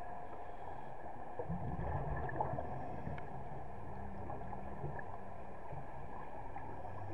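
Muffled underwater ambience in a diving pool: a steady hum with low gurgling rumbles that swell up about a second and a half in and again later.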